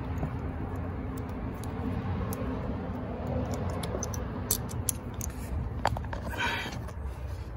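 Hands pulling the shipping cover plate off a new A/C compressor's refrigerant port: scattered small clicks of metal parts, a sharper click just before six seconds, then a short rushing noise, over a steady low rumble.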